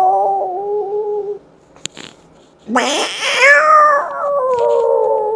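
A man's vocal imitation of two cats squaring up to fight: long drawn-out yowls voiced through his cupped hands. One yowl fades out about a second and a half in, a short click follows, then a second yowl rises sharply and is held, sagging slowly in pitch.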